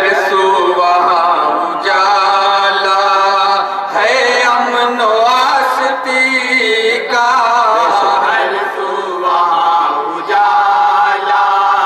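A group of men singing an Urdu naat in unison, unaccompanied, in long held phrases broken by short pauses every two to three seconds.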